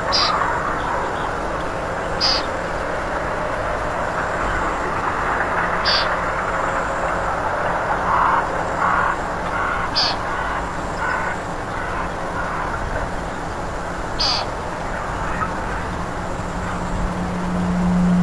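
A frog gripped in a snake's jaws giving harsh, croaking distress cries in a few short runs, over a steady hiss. Brief high clicks recur about every four seconds.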